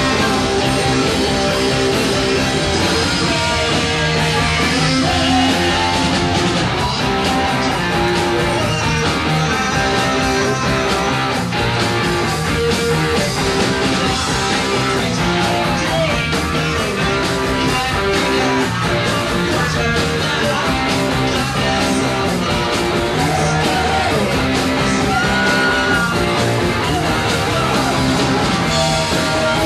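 Punk rock band playing live: distorted electric guitar over bass and drums in a steady, repeating rock rhythm.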